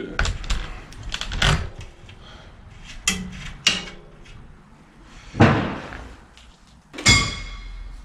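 15 mm spanner working a bicycle's rear axle nut: scattered metal clicks and knocks as the nut is loosened, a louder knock about five and a half seconds in and a ringing metal clink near the end.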